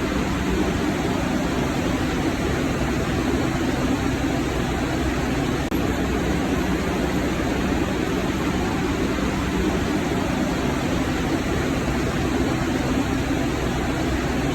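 Steady rumbling noise of a moving subway train, with a faint steady hum under it.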